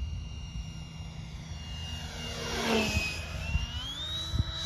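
Freewing F5 Tiger RC electric ducted-fan jet making a low pass, its fan whine growing loudest and dipping in pitch about three seconds in, then rising steadily in pitch near the end. This is the 12-blade fan running on the motor that drove the old 9-blade fan, and it sounds sickly, like a hairdryer.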